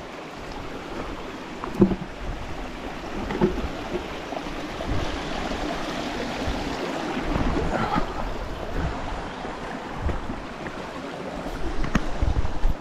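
Shallow creek water running over flat shale ledges and stones, louder about halfway through, with a few knocks of footsteps on the loose shale.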